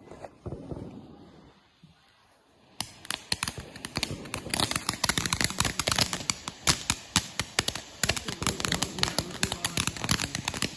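A consumer firework going off in a dense run of rapid crackling pops, starting about three seconds in and going on without a break.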